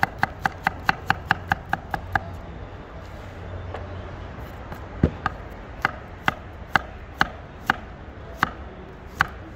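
Kitchen knife chopping yellow carrots into strips on a wooden cutting board: a quick run of about five strokes a second for the first two seconds, then after a pause, single chops about every half second.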